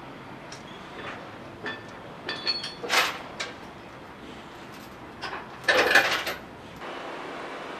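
Irregular metallic clanks and knocks, with a brief ringing clink about two and a half seconds in and the loudest clatter around three seconds and again around six seconds in, over a steady background hiss.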